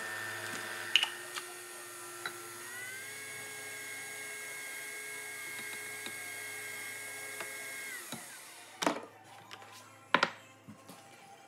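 Nespresso Vertuo coffee machine running as it brews, a steady motor whine that steps up in pitch about three seconds in and winds down at about eight seconds. After that come a few knocks and clinks as the mug is handled.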